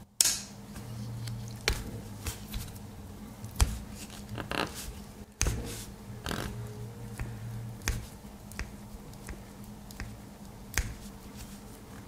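The blades and tools of a freshly oiled Victorinox Tinker Swiss Army knife being opened and closed, clicking and snapping into place about ten times at irregular intervals, with the sharpest click just after the start. A low steady hum runs underneath.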